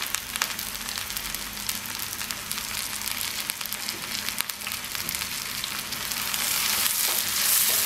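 Chopped onions frying in hot mustard oil in a kadai, a steady sizzle full of small crackles that grows louder near the end.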